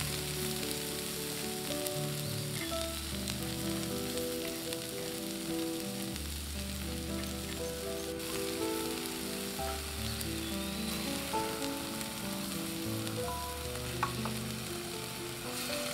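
Chwinamul (aster greens) sizzling as it is stir-fried in a cast-iron wok, turned with chopsticks, over soft background music.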